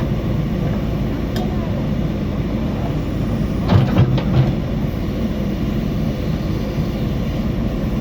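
JCB backhoe loader's diesel engine running steadily under work, with a short cluster of knocks about four seconds in.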